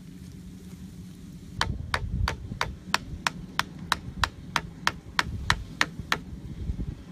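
Hatchet striking the top of a bamboo stake, driving it into mud: about fifteen sharp knocks at an even pace of roughly three a second, starting a second and a half in and stopping shortly before the end.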